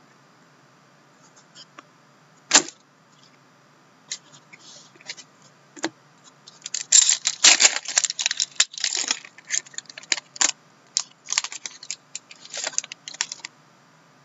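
Trading cards handled by hand: card stock flicking, sliding and snapping as a stack is sorted and flipped through. There is a single sharp tap about two and a half seconds in, then a dense run of quick clicks and rustles from about seven to nine seconds, and more scattered flicks after that.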